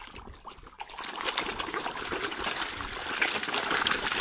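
A dense crowd of fish splashing and churning at a pond's surface: a steady watery hiss full of small slaps and gulps, starting about a second in and growing louder.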